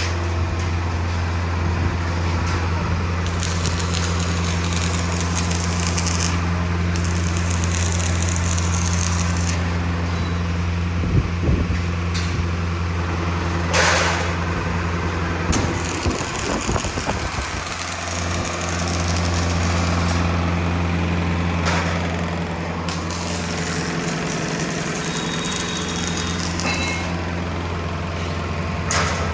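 An engine or motor running steadily with a low hum, with a few short knocks and a brief rattle over it.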